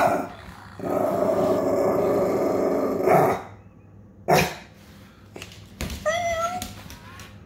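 A dog vocalising at a battery-powered toy cat: a long drawn-out grumbling call, then one short sharp bark. Near the end the toy cat gives a short electronic meow that rises and then holds.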